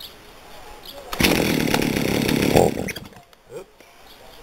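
Chainsaw throttled up about a second in, running loud for about a second and a half before dropping away, with a brief burst of throttle a little later.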